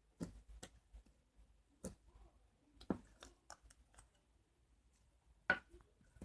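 Slime being handled, giving a scattered series of short, sticky clicks and pops, about ten in all, the loudest about five and a half seconds in.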